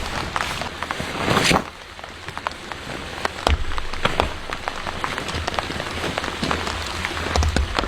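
Rain falling on a surface, a steady hiss with many separate drop hits. It is heavier for the first second and a half, then lighter with scattered drops.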